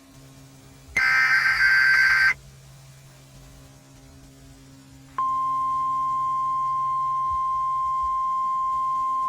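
Emergency Alert System SAME header burst, a shrill warbling data-modem screech lasting just over a second, about a second in. About three seconds later a steady, single-pitched EAS attention tone comes in and holds.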